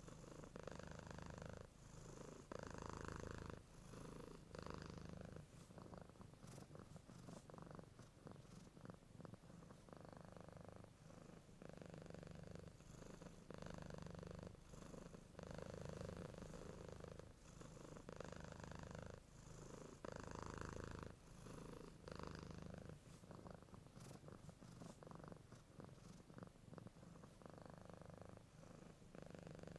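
A cat purring faintly and steadily, the purr swelling and fading with each breath about every second or so.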